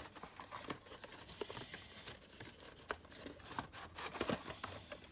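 A VHS cassette being slid out of its cardboard sleeve: cardboard rubbing and rustling, with scattered light clicks from the plastic shell.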